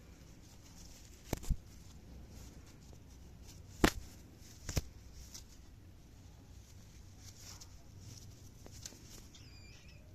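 Cockatiel in its cage: four sharp taps or clicks in the first half, the third the loudest, then one faint, short chirp near the end.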